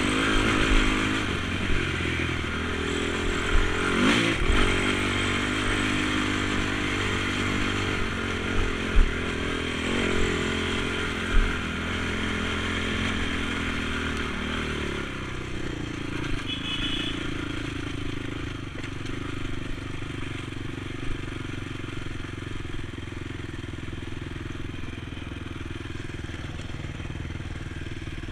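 Honda TRX450 quad's engine under way on a dirt trail, its pitch rising and falling with the throttle, with a few sharp knocks from bumps. Later it settles into a steadier note at cruising speed.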